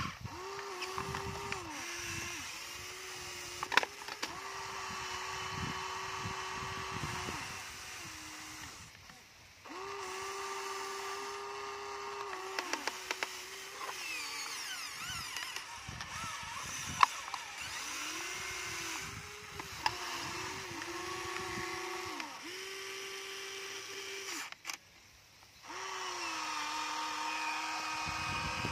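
Electric motors of a Huina radio-controlled toy excavator whining in spells as the boom, arm and bucket move, the pitch sagging as each movement starts and stops. A few sharp knocks break in.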